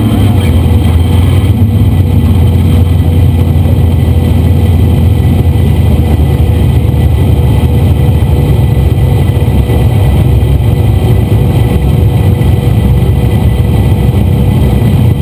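Sand rail's engine running loud at steady, high revs under load, heard from inside the open cab.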